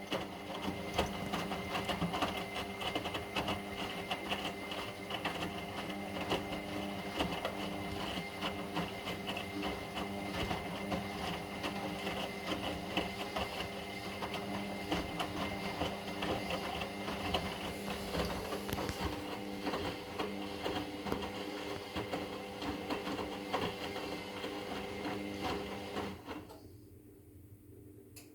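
Indesit EWD71452 front-loading washing machine tumbling its drum in the wash: a steady motor hum and whine with constant clattering. It stops about 26 seconds in as the drum pauses between turns.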